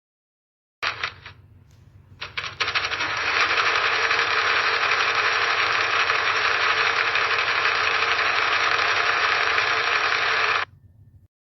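Sewing machine stitching: a short burst about a second in, then a few stitches as it starts again, then a steady run for about eight seconds that stops suddenly, leaving a brief low hum.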